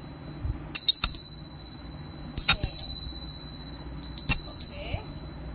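Small hand bell of the kind used in Hindu worship, rung during a food offering to a deity. There are three bursts of quick strikes, with a high, steady ring lingering between them.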